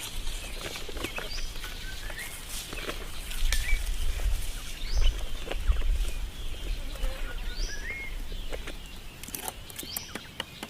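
Francolins (teetar) calling: short, high, rising calls repeated every second or two, over a low rumble that swells in the middle.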